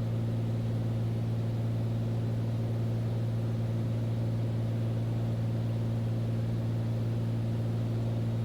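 Steady drone of a Beechcraft Bonanza's piston engine and propeller in flight, heard in the cockpit as an even, low hum that does not change.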